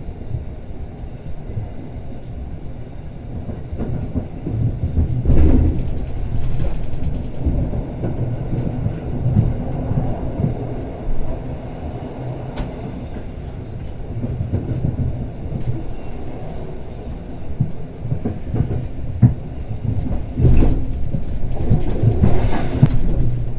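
Rhaetian Railway Bernina Express train running, a steady low rumble of the wheels on the rails. Several sharp knocks come through it, the loudest about five seconds in and again near the end.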